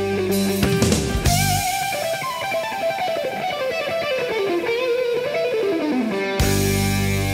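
Guitar music: sustained chords give way to a single melody line that wanders and falls in pitch while the low notes drop out, then the full chord comes back in abruptly near the end.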